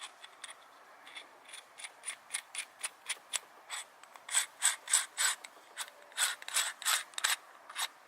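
Keyed Jacobs drill chuck being turned and tightened by hand: a run of gritty, ratchet-like clicks that grow louder and turn into longer scraping strokes about halfway through.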